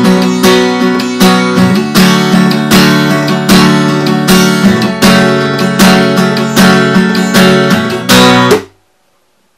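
Acoustic guitar strumming chords in a repeating, strongly accented pattern, with no singing. It stops abruptly near the end, leaving silence.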